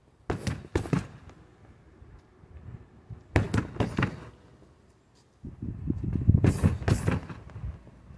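Strikes landing on a foam-and-tape-wrapped freestanding heavy bag: two sharp hits about half a second apart near the start, a quick cluster of hits a little after three seconds, and a longer flurry of heavier thuds and slaps from about five and a half to seven seconds.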